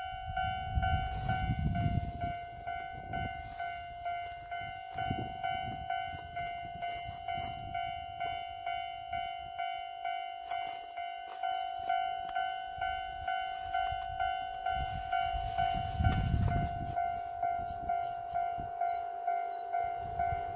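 Railway level-crossing warning bell ringing: an evenly repeating electronic ding a little under twice a second, warning of an approaching train. Low rumbling gusts come in twice underneath.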